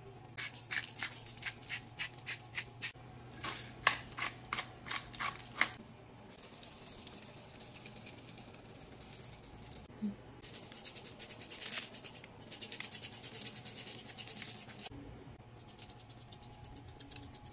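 Hand spice grinders being twisted over a baking tray, giving runs of quick rasping clicks, with a spice shaker's softer sprinkling hiss in a pause between them.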